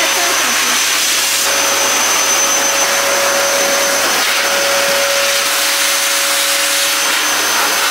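Dog grooming blower dryer running steadily at full blast: a loud, even rush of air with a thin steady whine over it.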